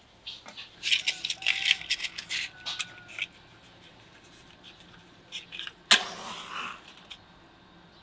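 Thin split wooden kindling sticks clicking and clattering against each other and the stone oven floor as they are stacked, a quick run of light knocks lasting about two seconds. Near the end there is one sharp crack followed by a brief dry rustle.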